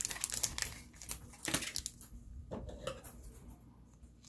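Crinkling of a torn-open trading-card booster pack wrapper and rustling of the cards as they are pulled out, a quick run of crisp rustles for about two seconds, then quieter handling.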